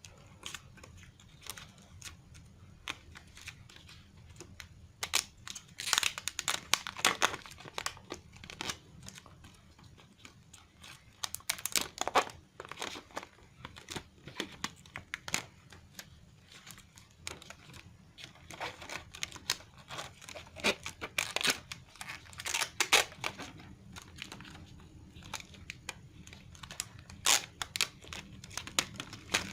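Plastic packaging crinkling and tearing in irregular bursts as items are unwrapped, with scattered clicks and rustles of handling.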